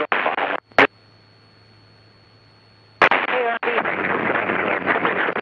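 Aviation radio traffic on the cockpit audio feed. A noisy transmission cuts off with a click just after the start, and a short key-click follows under a second in. About three seconds in, after a quiet stretch with only a faint steady hum, another crackly voice transmission breaks in with a click.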